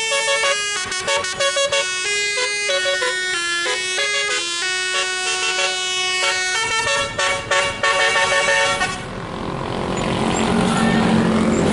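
Basuri telolet horn on a tour bus playing a quick tune of shifting tones, which stops about nine seconds in. A rising rush of vehicle noise follows.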